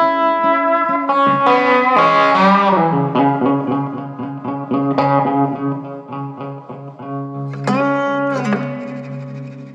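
Background music with held, sustained notes that bend in pitch a couple of seconds in and again near the end.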